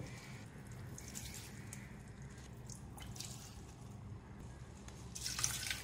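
Soaked basmati rice being dropped from a slotted spoon into beef stock in a large pot: faint soft splashes and drips, a few scattered through and the loudest near the end, over a low steady hum.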